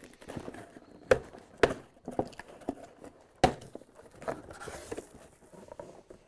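Cardboard shipping case being opened by hand: irregular knocks and scrapes as the flaps are pulled apart and folded back, the sharpest knock about halfway through, with a short papery rustle after it.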